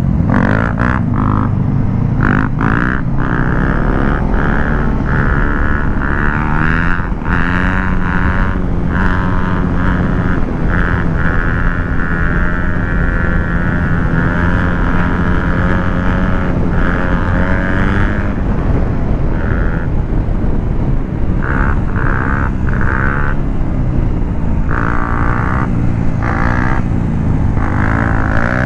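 Motorcycle engine running while riding. Its pitch rises and falls with the throttle at first, holds steady for several seconds in the middle, then changes again toward the end.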